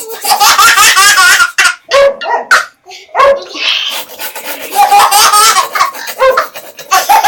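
Baby laughing hysterically in repeated bursts of giggles and belly laughs.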